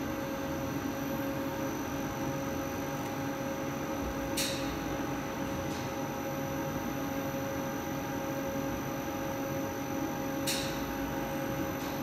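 Small plastic extruder running steadily while it extrudes a thin strand of compound from its die, a constant hum with a few steady whining tones. Two short hisses come through, about four and a half and ten and a half seconds in.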